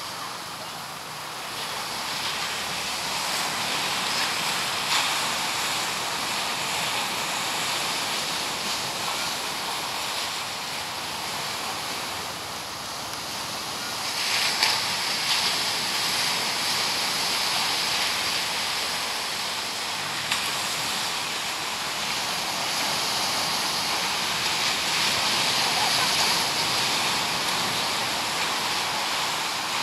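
Ocean surf breaking and washing up the beach, a steady rushing noise that swells and eases every few seconds, with a few brief knocks.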